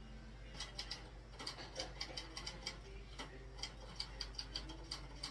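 An irregular run of sharp clicks, several a second, starting about half a second in, over a low steady hum.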